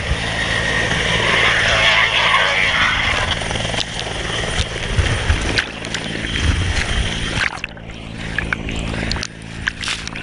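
Helicopter running steadily, a low rotor and engine hum under loud rushing wind noise on the camera microphone. About seven and a half seconds in the rushing eases, leaving the hum and scattered sharp clicks.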